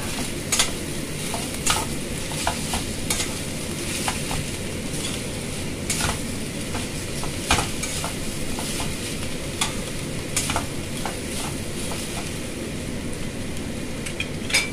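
Rice sizzling as it is stir-fried in a pan, with a metal spatula scraping and knocking against the pan at irregular intervals.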